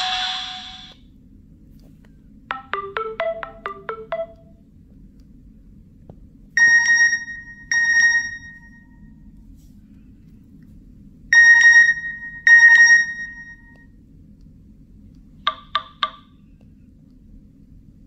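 Nokia N72 alert-tone previews from the phone's speaker. A melody fades out at the start. Then come a quick run of plinking notes, a two-note chime played twice, and a short cluster of blips near the end, with pauses between.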